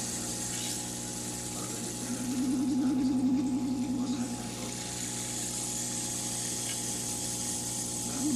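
Steady hum of aquarium equipment such as a filter or air pump. A warbling tone joins it about two seconds in and fades out a couple of seconds later.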